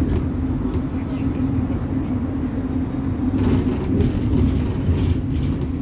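Steady low rumble of engine and tyre noise heard from inside a moving road vehicle, with a constant low hum.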